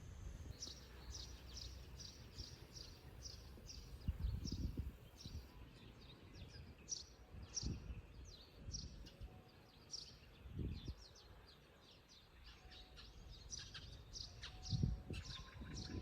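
A bird chirping over and over: short, high chirps that sweep downward, about two a second, pausing briefly near the middle. A few brief low thumps sound underneath.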